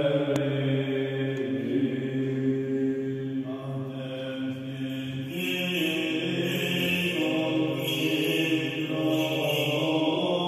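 Greek Orthodox Byzantine chant sung during a liturgy: a slow hymn with long held notes that move to a new pitch every second or two.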